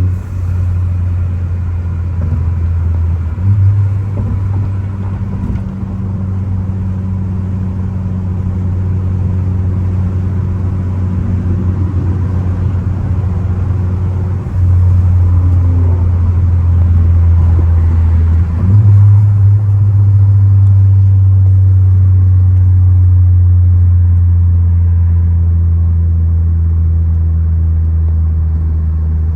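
Turbocharged Ford Focus ST engine and exhaust droning low and steady while driving. The drone steps abruptly a few seconds in, again about halfway, and once more about two-thirds through, getting louder at the last two steps.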